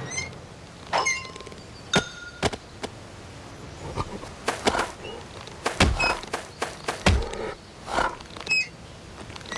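Cartoon slapstick sound effects of a bear tumbling with a rope swing and its wooden seat: a string of separate thumps and knocks, several in quick succession in the middle, with short high chirps in between.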